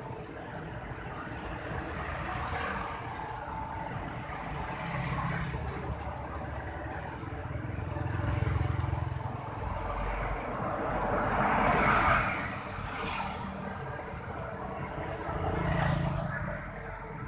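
Street traffic heard from a moving motorbike: a steady engine hum and road rush, swelling louder as other motorbikes and cars pass, loudest about twelve seconds in and again near the end.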